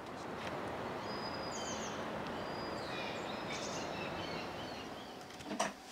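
Steady outdoor background noise with small birds chirping faintly over it in the middle. A brief sharp sound comes near the end.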